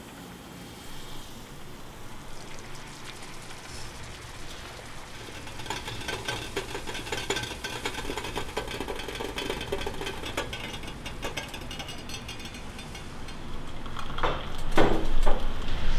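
Food sizzling in a frying pan on an electric stove, a dense crackle that builds from about five seconds in and eases off after several seconds. Near the end come a few louder knocks and scrapes of kitchenware.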